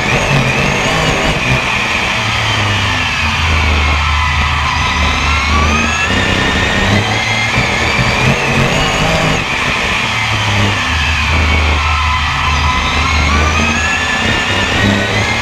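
BriSCA F1 stock car's V8 engine racing, heard from a camera mounted on the car: the revs drop twice, about four and eleven seconds in, and climb again after each as it goes through the bends and onto the straights.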